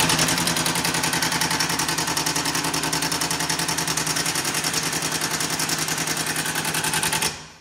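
Milwaukee M18 Fuel cordless impact wrench hammering a bolt on a van's tow-hitch mounting, a steady rapid rattle that stops abruptly near the end as the new hitch is bolted on.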